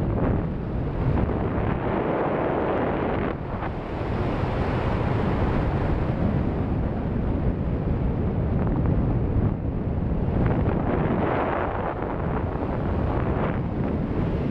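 Wind noise from the airflow of a paraglider in flight buffeting the microphone: a steady rushing that swells and eases, with a brief lull about three and a half seconds in.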